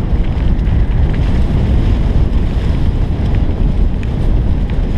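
Wind buffeting the microphone of a camera on a moving mountain bike: a steady, loud low rumble.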